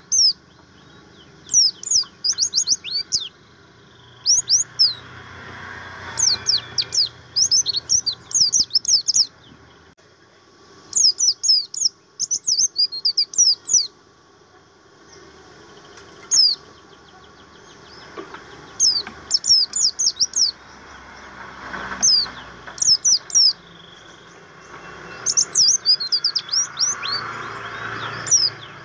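A white-eye of the pleci buxtomi type singing: phrases of rapid, high-pitched, downward-slurred notes, each phrase a second or two long, repeated after short pauses.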